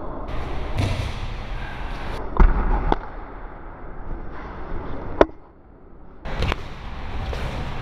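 Handling noise from the camera being picked up and moved by hand: rubbing and rumbling against the microphone with several sharp knocks and thumps, the loudest about two and a half and five seconds in.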